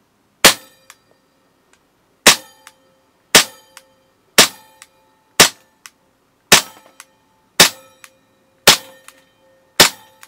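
CZ75 gas blowback airsoft pistol firing nine single shots, about one a second, the slide cycling with each shot. Each shot is followed by a faint click.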